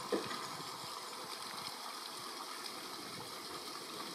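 George England 0-4-0 saddle-tank steam locomotive Prince hissing steam from its open cylinder drain cocks as it moves slowly. A single short knock sounds right at the start.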